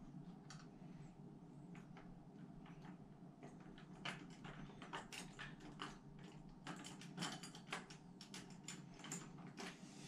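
Faint, irregular light clicks and small metallic rattles of a door knob and its rose being wiggled and turned against the door while the mounting screws are felt into line with the threaded posts. The clicks come more often from about four seconds in.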